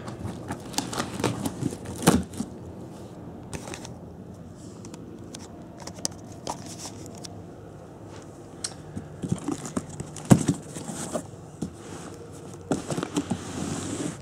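A plastic-wrapped cardboard parcel being cut and torn open by hand: plastic wrap crinkling and crackling, with scattered scrapes and knocks on the cardboard.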